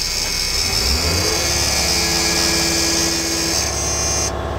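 School bus engine idling with a low, buzzing rumble, under a steady high hiss of escaping air from the air brake system. A tone rises about a second in, holds for a couple of seconds and stops.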